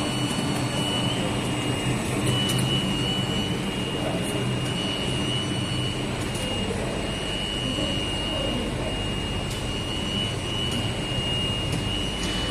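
Rubber co-extrusion and microwave curing production line running: a steady machine hum and whir with a constant high-pitched whine over it.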